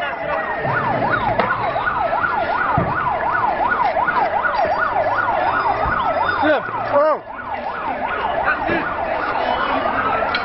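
Emergency vehicle sirens: one sweeps fast up and down in a yelp, about three or four times a second, while another rises and falls more slowly in a wail. About two-thirds of the way through, the yelp falls away and breaks off briefly before resuming.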